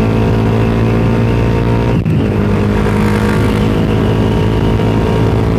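Suzuki Satria FU Fi's single-cylinder four-stroke engine running on the move through an aftermarket Tritech Ronin Katana SE exhaust, with a steady note and a brief break about two seconds in.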